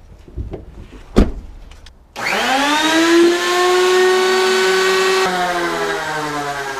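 A truck door shuts with a single sharp thump about a second in. About two seconds in, an electric motor starts suddenly, spins up to a steady high whine over a hiss, and its pitch sags slightly near the end.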